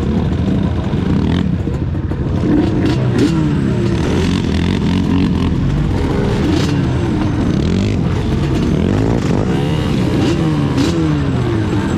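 Sport ATV engines running close by, a steady idle with repeated revs that rise and fall in pitch from about two seconds in.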